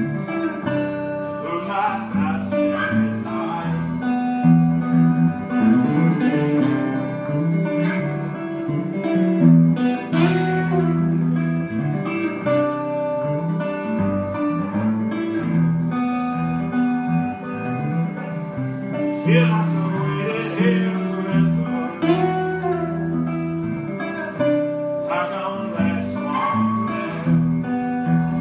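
Solo live music: a man playing an acoustic guitar and singing into a microphone, his sung lines coming and going over the steady guitar playing.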